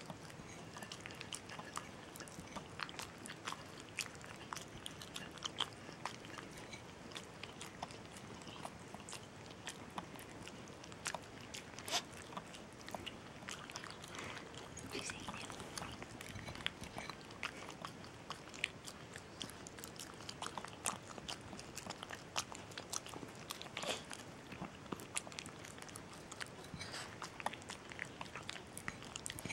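Small dog licking and smacking sticky peanut butter from a ceramic bowl: a continuous run of irregular wet clicks from tongue and jaws, with a few sharper ones.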